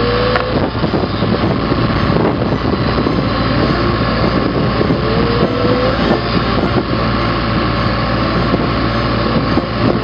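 Portable flange-facing machine running steadily while machining the warped mating face of a steel wind-tower flange, with a short rising squeal about every five seconds.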